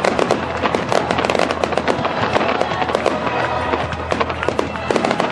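Aerial fireworks going off in rapid succession: a dense, continuous crackle of many sharp pops and bangs.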